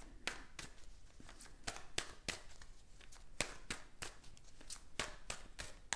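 A tarot deck being shuffled by hand, the cards clicking against each other in short crisp snaps about three times a second.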